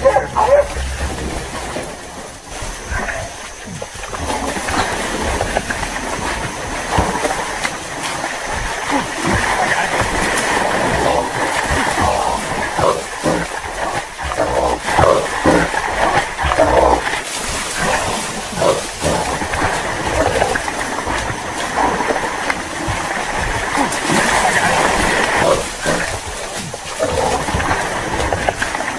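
Hunting dogs barking and baying at a wild boar they have caught, amid the noisy scramble of a hunter running to them through a muddy creek bed.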